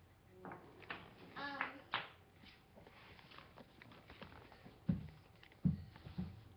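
A toddler's short wordless vocal sounds, followed from about five seconds in by three or four dull thumps, which are louder than the voice.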